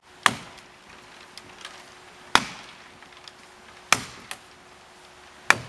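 Four blows of a 3.5 lb Jersey-pattern axe chopping into a felled white ash, one about every one and a half seconds, each a sharp crack that dies away quickly.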